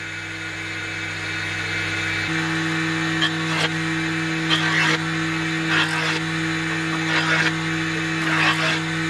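Circular table saw running with its blade spinning free, no wood in the cut: a steady electric motor hum that builds up over the first couple of seconds. From about three seconds in, a few short scraping or knocking noises rise above the hum.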